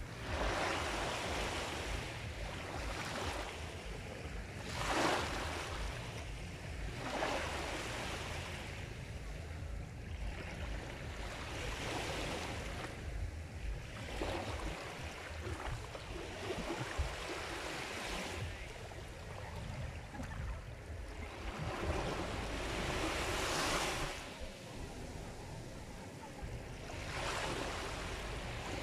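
Sea surf washing onto the shore: a continuous hiss of breaking waves that swells and ebbs in irregular surges every two to four seconds, over a low rumble.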